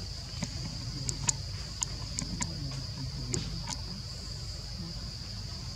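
Steady high-pitched insect drone of forest crickets or cicadas, with a low rumble underneath and a scatter of sharp clicks between about one and four seconds in.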